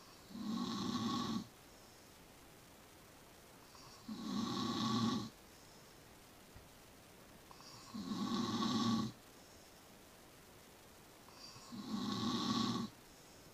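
Snoring: four loud snores about four seconds apart, each lasting a little over a second, with quiet in-between breaths.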